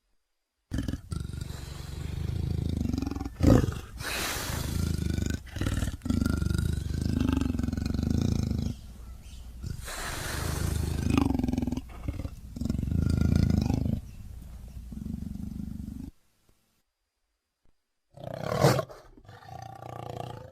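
Utahraptor creature sound effect: a long stretch of deep growling roars with wavering pitch, a sharp click about three and a half seconds in, and breathy, hissing parts around four and ten seconds. It stops abruptly, and after a pause of about two seconds comes one short roar.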